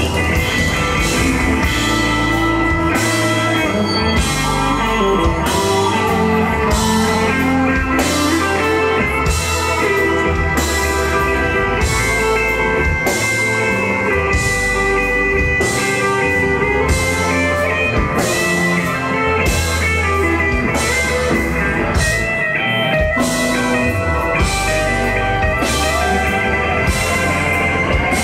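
Live band playing an instrumental passage: electric guitar over keyboard, bass and a drum kit, with cymbals keeping a steady beat.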